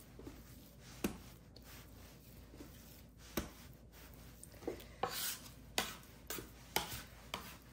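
Hands pressing and folding soft panettone dough on a worktop to degas it and give it strength: scattered soft slaps and taps, more frequent in the second half.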